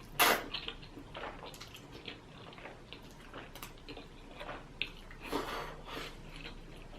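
Soft, wet chewing and mouth smacks of a person eating close to the microphone, with one louder sharp sound right at the start.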